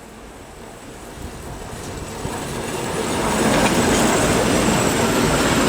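2M62 two-section diesel locomotive with 2D49 diesel engines approaching on the track, growing steadily louder over the first three seconds or so and then staying loud, with its engine noise mixed with wheel and rail noise.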